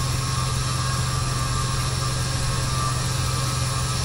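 Semi truck's diesel engine idling steadily under a steady hiss of air. The driver takes the hiss for the air system airing up the tires rather than a leak.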